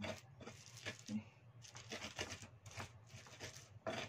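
Spices being ground by hand with a pestle on a flat cobek mortar: repeated rough scraping and grinding strokes, about two or three a second, uneven in force.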